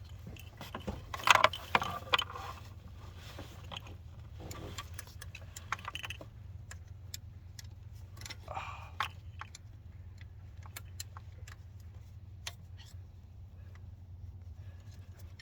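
Metal hand tools clinking and rattling in a car's engine bay during a thermostat removal, with scattered sharp clicks and two louder clatters, one about a second in and one about halfway through. A steady low hum runs underneath.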